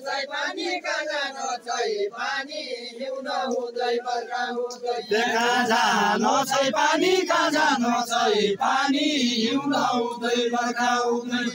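A group of men singing a Deuda folk song together in a line dance, in a chanting style, the voices growing louder and fuller about five seconds in.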